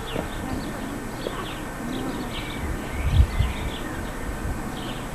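Small birds chirping repeatedly in short high calls, with a brief low thump about three seconds in.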